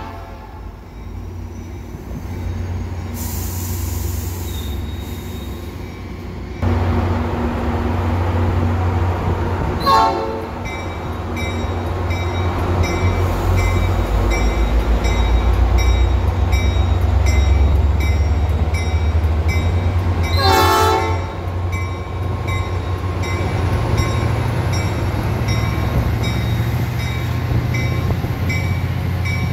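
Metra MP36 diesel locomotive and its bilevel coaches passing close by. The low engine rumble jumps up about a third of the way in and stays heavy as the locomotive goes past. Two short horn blasts sound, one around a third in and one about two-thirds in, and a bell rings steadily through the second half.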